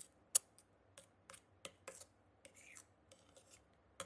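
Spoon stirring a slime mixture in a bowl: irregular light clicks and scrapes of the spoon against the bowl, a few a second, with one sharper click about half a second in.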